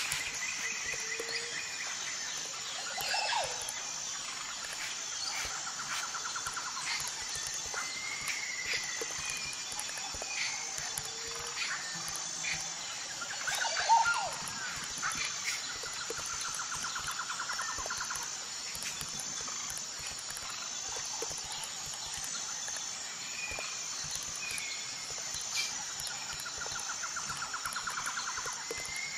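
Outdoor nature ambience: a steady high insect buzz, with birds chirping and trilling now and then and one louder call about halfway through.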